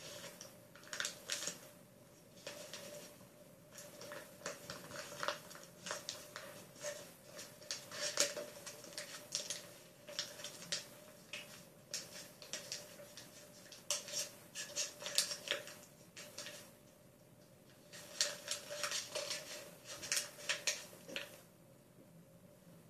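A sheet of white paper being folded and creased by hand against a wooden tabletop: irregular crisp rustles and crinkles that come in clusters with short pauses between them. A faint steady hum runs underneath.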